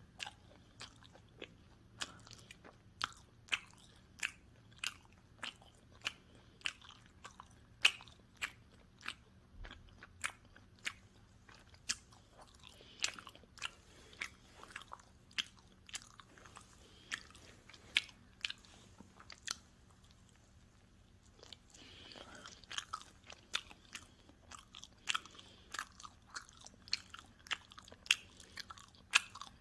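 Close-miked chewing of pizza: crisp crust crunching in sharp crackles about once or twice a second. The chewing stops briefly about two-thirds of the way through, then resumes as denser crunching.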